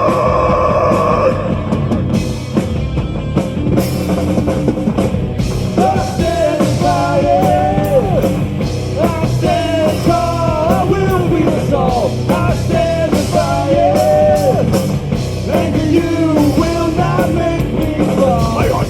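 Live metal band playing a heavy rock song: distorted guitars, bass and drum kit, with a bending melodic line over the band from about six seconds in.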